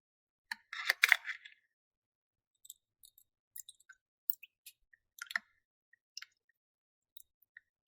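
Plastic toys and packaging being handled: a burst of rustling about a second in, then a scatter of light clicks and taps.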